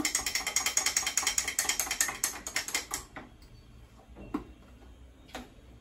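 A spoon clinks rapidly against the inside of a mug as flour is stirred into cold red wine to dissolve it without lumps. The fast, even tapping lasts about three seconds, then thins to a few scattered clicks.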